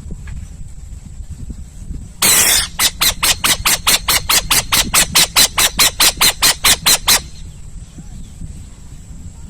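An owl calling: a harsh hissing burst, then a rapid run of about twenty raspy pulses, some four or five a second, lasting about five seconds before it stops.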